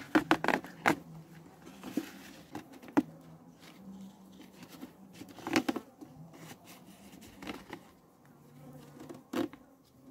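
Plastic tarp crackling and rustling in short bursts as a cord is tied around it, loudest near the start, about midway and near the end, over a low buzzing of honey bees that comes and goes.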